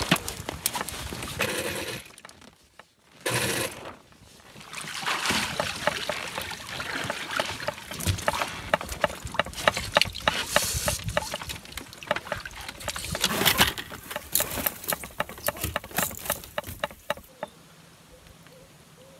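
Jib sail of a Hobie Getaway catamaran flapping and its rigging rattling as the sail is unfurled: a rapid, irregular crackle and clatter, broken by two short gaps. It quiets near the end.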